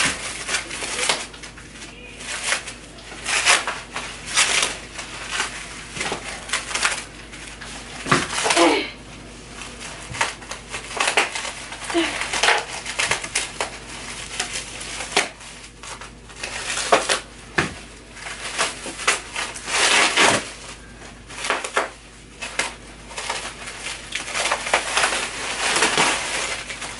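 Many wound layers of Saran wrap cling film crinkling and crackling in irregular bursts as they are pulled and torn away by hand.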